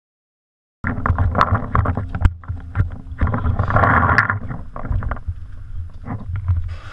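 Muffled rumble and handling noise from a gun-mounted action camera in its housing, jostled as the player moves, with scattered knocks and clicks. It starts abruptly about a second in.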